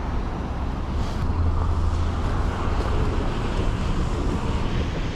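Steady road traffic noise from cars and heavier vehicles passing on a multi-lane road, with a low rumble of wind on the microphone that swells briefly about a second in.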